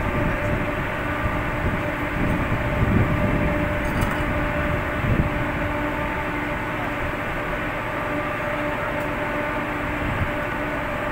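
Steady drone of a ship's machinery: a constant rushing noise with several steady humming tones running through it.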